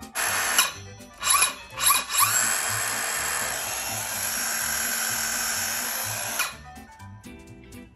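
Bosch GKS 18V-57 cordless circular saw running free, not cutting. The trigger is blipped three times, then held for about four seconds as the motor spins up to a steady high whine, and released near the end.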